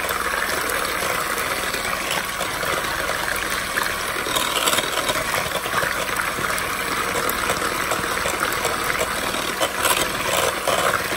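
Electric hand mixer running steadily at the third of its five speeds, its beaters churning through eggs and softened butter in a bowl.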